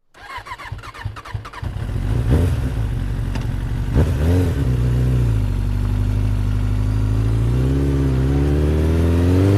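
Motorcycle engine revved in two quick blips about two and four seconds in, then running steadily before its pitch climbs gradually near the end as it speeds up.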